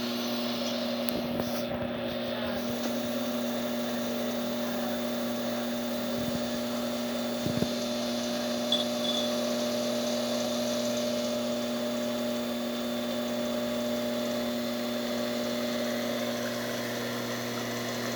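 Rocket E61 heat-exchanger espresso machine's pump running steadily while pulling a shot at about 9 bar, a continuous mechanical hum with a few small clicks.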